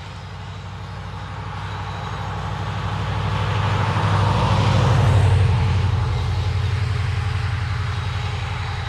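A motor vehicle driving past: a low engine drone with tyre noise that grows louder to a peak about five seconds in, then fades away.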